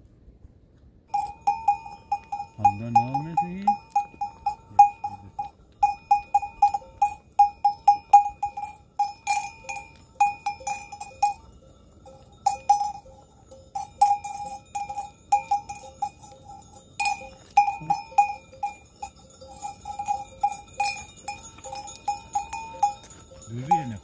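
Metal bell on a grazing goat's collar clanking over and over in an uneven rhythm as the goat moves its head, starting about a second in. A short rising bleat comes about three seconds in.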